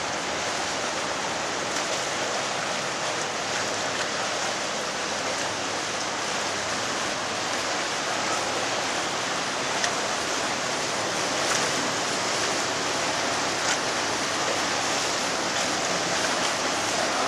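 Steady rushing of water along the hull of a boat under way on a canal, with no break through the whole stretch.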